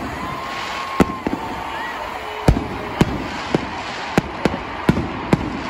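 Aerial fireworks exploding: a rapid, irregular run of sharp bangs, about two a second, over a steady background din.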